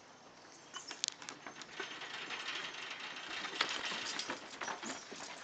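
Greyhounds' toenails clicking and tapping irregularly on a hard porch floor as several dogs move about, starting about a second in and getting busier.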